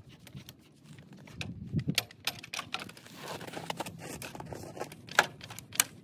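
Floor jack being worked under a small crawler dozer: irregular metal clicks and knocks, a few dull thumps about two seconds in, and a scraping rush about halfway through.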